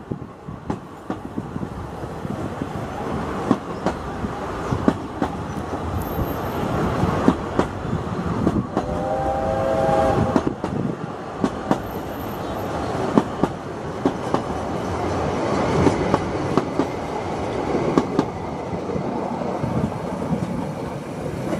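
Narrow-gauge passenger coaches rolling past close by, the wheels clicking over the rail joints with a steady rumble. A brief pitched squeal sounds about nine seconds in.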